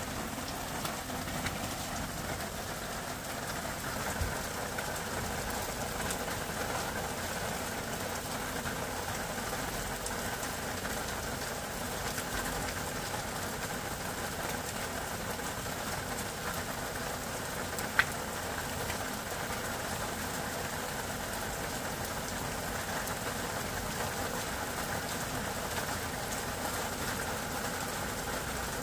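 Fish head curry simmering in a pan on a gas hob, a steady bubbling noise throughout, with one sharp click about eighteen seconds in.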